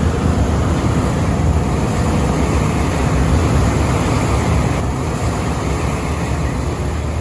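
A boat's engine running steadily with a low drone, under a constant rush of wind and water.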